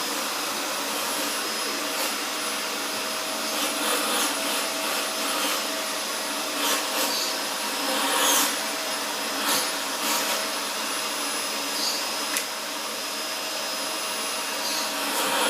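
Vacuum cleaner running steadily with a constant whine. A few short, louder rushes of air come in the middle stretch as its nozzle is worked over a cat's fur.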